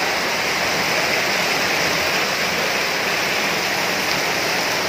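Rushing water from a heavy downpour and floodwater flowing through a street: a steady, loud, even rush.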